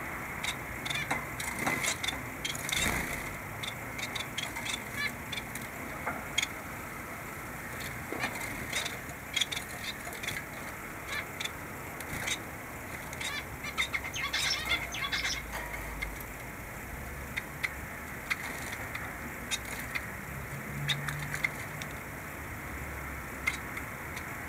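Caged society finches making short, scattered chirps and call notes, with a denser flurry about two-thirds of the way through, and some wing flutters as they move about the cage, over a steady low hiss.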